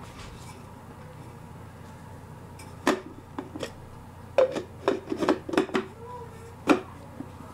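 Parts of a Wolfgang Puck immersion blender's chopper attachment clicking and knocking as they are handled and fitted together. A single click comes about three seconds in, then a quick run of knocks, with the sharpest one near the end.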